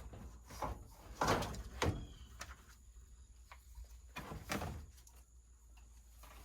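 Scattered knocks and scrapes of a new battery being handled and worked into place in a Kubota tractor. The loudest pair comes a little over a second in, and another pair about four seconds in.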